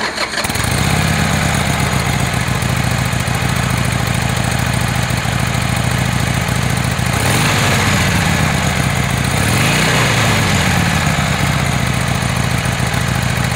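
Harley-Davidson Sportster's air-cooled Evolution V-twin idling, with the throttle blipped twice near the middle, the revs rising and falling back each time.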